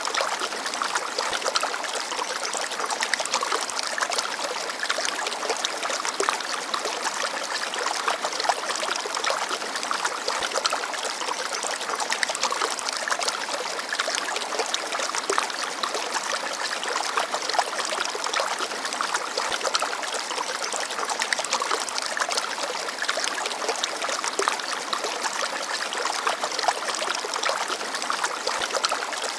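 A small forest stream babbling steadily, with water trickling and splashing over stones in a dense patter of small droplets.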